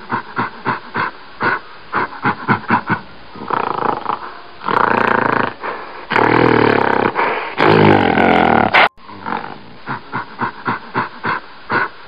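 Gorilla calling: a run of short grunting calls, about three a second, then several longer, louder roars, then short calls again after an abrupt cut about nine seconds in.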